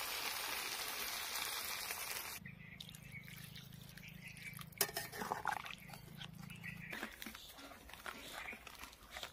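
Chicken and potatoes sizzling in oil in a metal kadai, a steady hiss that cuts off abruptly about two and a half seconds in. After that, quieter sounds of water poured in from a steel mug and a spatula stirring the curry, with a few faint clicks.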